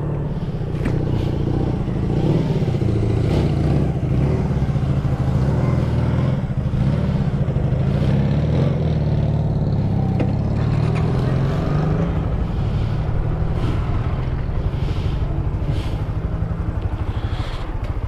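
Motorcycle engine running at low revs as the bike moves off and rolls slowly over paving, steady throughout with small rises and falls in pitch.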